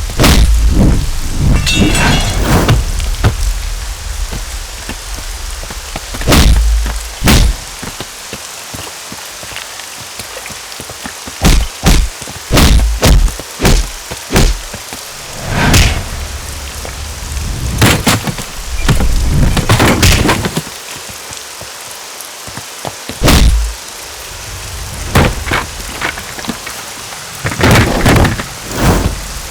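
A string of sharp hit and thud sound effects, several with a deep low thump, coming every second or two over a steady hiss like rain.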